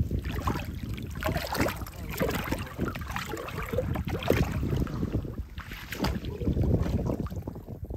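Shallow water splashing and sloshing as a mesh net bag is dipped and swished through it, with wind rumbling on the microphone.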